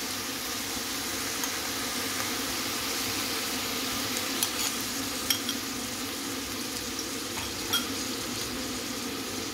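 Cauliflower and ground beef sizzling steadily in a stainless-steel pan while a spoon stirs in tomato paste, with a few light clicks of the spoon against the pan in the second half.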